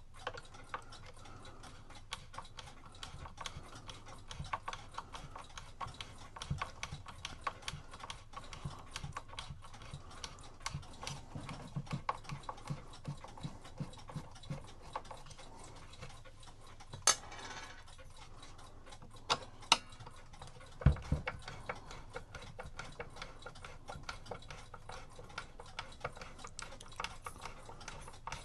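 Small irregular metal clicks and taps from a screwdriver and parts being handled on a cuckoo clock's movement and music box, with a few sharper clicks past the middle.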